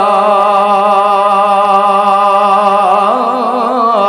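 A man singing an Islamic devotional gojol unaccompanied into a handheld microphone. He holds one long note with a slight waver for about three seconds, then moves through a short ornamented turn.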